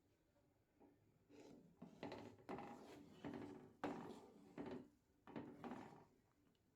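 A run of short scraping or rubbing strokes, about eight of them, starting about a second in and stopping near the end.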